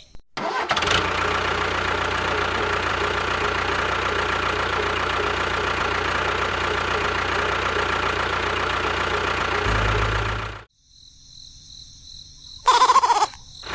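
A small motor running steadily with a low hum, cutting off suddenly about ten seconds in. Near the end comes a brief, loud sound that wavers in pitch.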